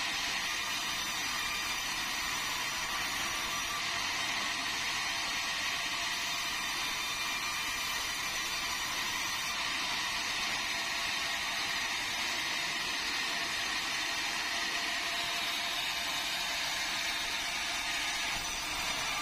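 Vertical band sawmill running steadily, its blade sawing through meranti timber as the log is fed past it.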